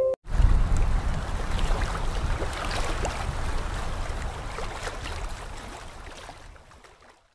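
Rushing, water-like whoosh sound effect for an animated channel logo, starting suddenly with a deep rumble and faint scattered crackles, then fading out steadily over several seconds.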